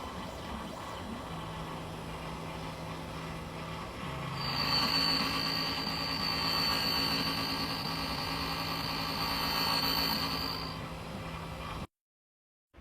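Computerised key-cutting machine cutting a mechanical key blade: a steady motor hum, joined about four seconds in by a louder, high steady whine of the spinning cutter, which stops about a second before the end.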